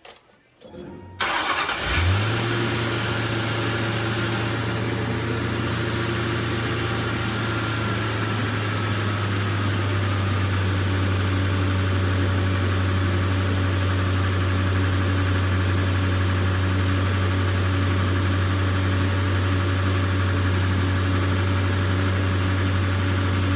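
Ford 4.6-litre V8 started about a second in, catching and then idling steadily, with a thin high whine running alongside. The engine is run at idle so the water pump, driven by the serpentine belt, circulates fresh coolant after the pump has been replaced.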